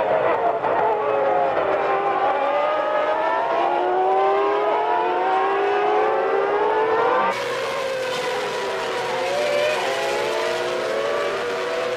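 High-revving 1995 Formula One car engines at racing speed, several pitches overlapping. The engine note climbs steadily as a car accelerates. The sound changes abruptly about seven seconds in.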